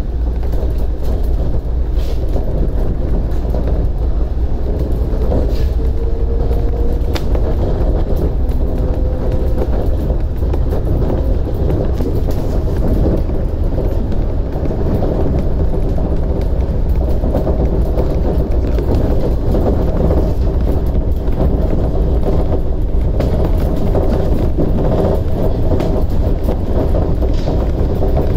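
Shonan Monorail car running at speed, heard from inside: the steady rumble of its rubber-tyred suspended train, with a faint whine that rises briefly about five seconds in and a few light clicks.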